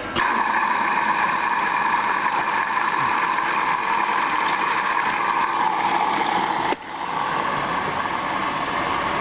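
Hoover washing machine filling at the start of its cycle: the water inlet valve opens suddenly and water rushes in with a steady hiss, breaking off for an instant about two-thirds of the way through before carrying on.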